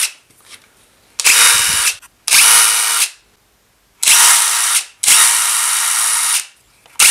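DeWalt DCF887 18V brushless impact driver spinning with no load on its top speed setting, so the hammer mechanism does not engage. The trigger is pulled in four short bursts, each a steady whir that starts and stops sharply, the last one longer, and a fifth starts at the very end.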